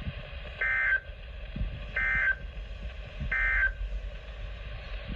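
Three short bursts of EAS SAME end-of-message data tones from a NOAA Weather Radio receiver, each about a third of a second long and spaced about a second apart, over a low radio hum. They signal the end of the weekly test broadcast.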